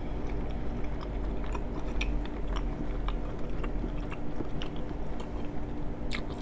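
A person chewing a mouthful of seafood-boil shrimp with the mouth closed: soft, wet mouth clicks and smacks scattered throughout, with a sharper click near the end. A steady low hum runs underneath.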